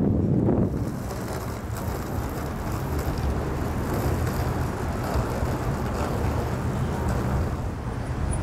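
Steady road traffic noise from passing cars, with a gust of wind on the microphone in the first second.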